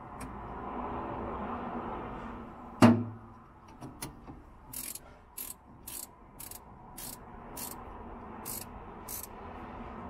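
A single loud metallic clunk as the battery terminal goes onto the post of a 1976 VW bus battery. Then a run of eight or nine short, sharp metallic clicks, about two a second, as the terminal clamp is tightened by hand with a tool.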